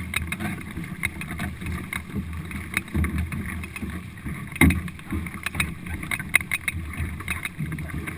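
Paddles of a four-person racing canoe splashing into the water stroke after stroke, with water churning and rushing past the hull. Irregular sharp splashes and knocks run throughout, the loudest a single knock about four and a half seconds in.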